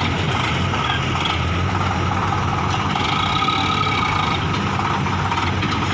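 Diesel engines of a Sonalika DI 60 tractor and a JCB 3DX backhoe loader idling steadily: a low, even hum with a constant whine over it.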